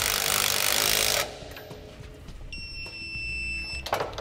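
Milwaukee M18 cordless power tool running for about a second as it snugs down a sway-bar end-link bolt, then a steady high-pitched beep lasting about a second, and a sharp click near the end.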